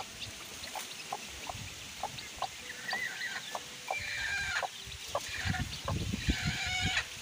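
A broody hen clucking in short repeated calls among her feeding chicks, with higher chick cheeps here and there and a few dull low knocks in the second half.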